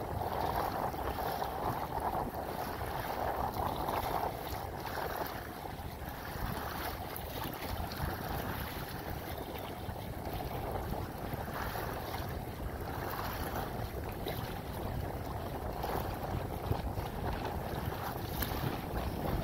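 Wind blowing across the microphone and wind-driven chop splashing against the hull of a kayak moving through it.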